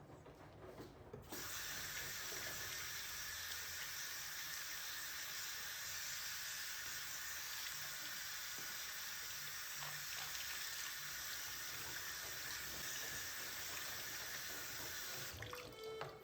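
Tap running steadily into a sink, turned on about a second in and shut off near the end.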